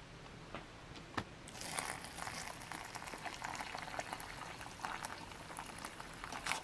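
Water pouring into a pouch of freeze-dried pasta to rehydrate it, a steady splashing stream that starts about a second and a half in, just after a single short click.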